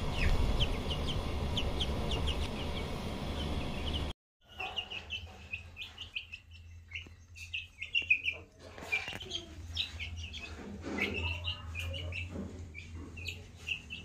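Young aseel chickens peeping, a steady stream of short, high chirps. The sound breaks off for a moment about four seconds in. In the second half, scattered taps come from the chicks pecking feed off a plastic tray.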